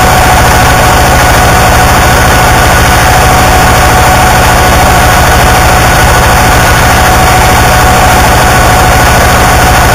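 Harsh noise music: a loud, unchanging wall of distorted noise over a fast, low buzzing pulse, with steady tones held through it.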